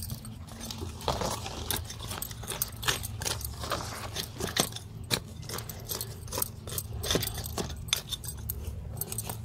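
Hands scraping, heaping and pressing dry, stony garden soil around the base of a taro plant while earthing it up, with many irregular scrapes, crunches and clicks of soil and pebbles.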